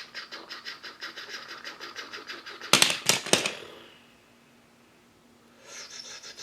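Plastic toy construction vehicle clicking along at about eight clicks a second, its gears or tracks ratcheting. About two and a half seconds in, a burst of loud clattering knocks like toy blocks tumbling down. After a short pause the clicking starts again near the end.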